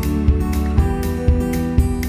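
Gentle background music with acoustic guitar and a steady beat of about two beats a second.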